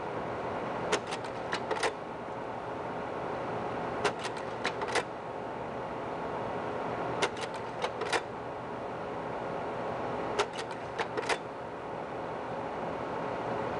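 Slide projector changing slides: a quick clatter of four or five mechanical clicks about every three seconds, four times, over the steady hum of the running projector.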